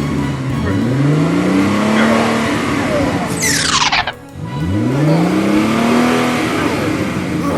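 Vehicle engine revving up, its pitch rising steeply twice, once about half a second in and again about four and a half seconds in. A short falling whistle cuts through just after three seconds.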